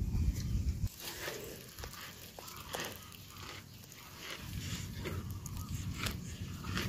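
Cattle pulling at and chewing fresh-cut green grass at a trough, with irregular crisp crunching and tearing sounds. A heavy low rumble fills the first second and then cuts off abruptly.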